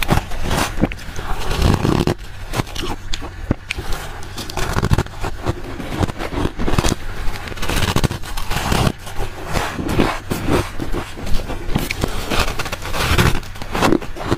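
Close-up chewing of soft freezer frost: many quick, irregular crunching bites.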